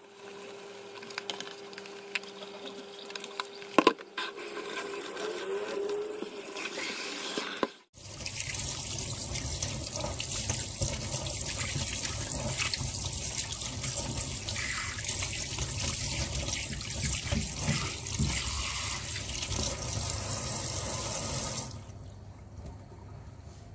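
Kitchen tap's spray head running water into a steel sink while a plastic dog bowl is rinsed, then shut off near the end. Before the water comes on, the bowl is handled over the sink, with one sharp knock about four seconds in.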